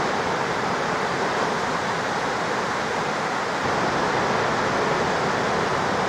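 Steady wash of breaking ocean surf, an even noise without distinct single crashes, growing slightly louder a little past halfway.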